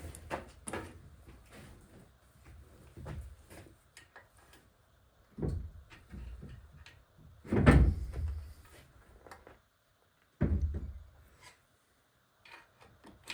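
Irregular clunks and knocks of transmission parts being handled and fitted, with small clicks in between; the heaviest knock comes about eight seconds in.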